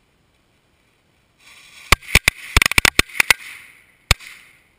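A string of World Class Class Crackers firecrackers going off: a hiss starts about a second and a half in, then about a dozen sharp bangs in quick, uneven succession, with one last bang near the end.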